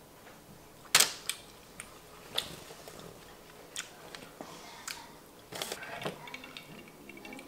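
Close-miked mouth sounds of eating saucy chicken wings: wet lip smacks and finger-sucking pops, the first a sharp, loud pop about a second in, followed by scattered smaller smacks and clicks.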